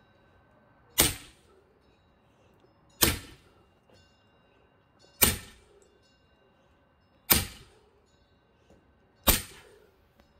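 Five heavy axe blows into a thick pine log being split for firewood, evenly spaced about two seconds apart, each a sharp crack with a short tail.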